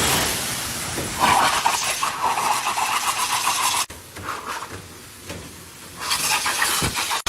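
Blow dryer for drying a dog, blowing with a steady loud hiss. It drops away suddenly just under four seconds in and comes back loud about six seconds in.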